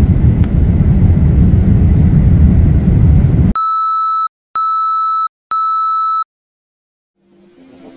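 Steady roar of jet airliner cabin noise, heard at a Boeing 787's window seat, cuts off abruptly about three and a half seconds in. Three identical steady test-tone beeps about a second apart follow, each under a second long. After a short silence, music fades in faintly near the end.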